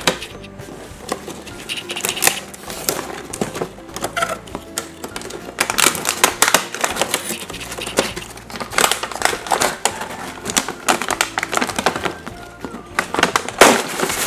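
Background music with clusters of rapid clicking and crinkling from a toy's plastic and cardboard packaging being handled and opened. The loudest click comes near the end.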